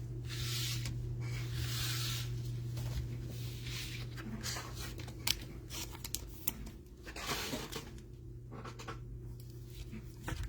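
Crinkling and tearing of a trading-card pack wrapper, mostly in the first few seconds, then light clicks and rustles of cards being handled. A steady low electrical hum runs under it.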